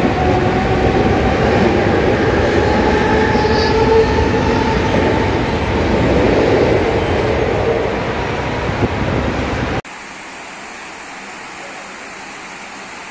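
Central Railway EMU local train running along the platform: rumble of wheels and coaches with a motor whine rising slowly in pitch as it gathers speed. About ten seconds in it cuts off suddenly to a much quieter steady background.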